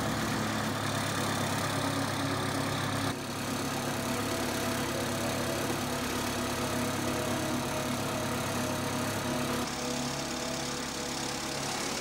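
Wood-Mizer LT40 band sawmill's engine running steadily, its note shifting about three seconds in and again near ten seconds.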